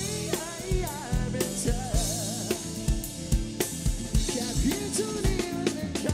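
A band song played back from a multitrack recording through a Behringer X Air digital mixer: a drum kit with kick and snare keeps a steady beat under a singer's voice with wavering vibrato.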